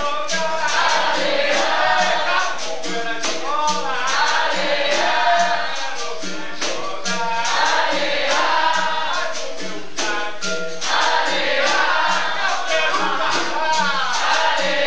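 Capoeira Angola roda music: berimbaus and pandeiros playing a steady, even rhythm under a chorus of voices singing.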